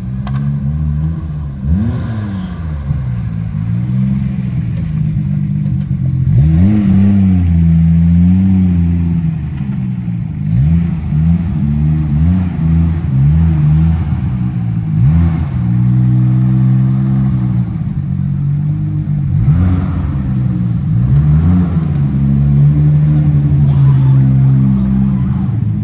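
Nissan Skyline R32 GT-R's twin-turbo RB26 straight-six running while the car is driven in slowly. The revs rise and fall again and again under light throttle.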